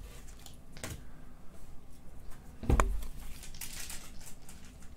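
Paper packets of Panini Megacracks trading cards being torn open and their wrappers crinkled, the rustling busiest in the second half. A sharp click comes about a second in, and a louder thump near the middle.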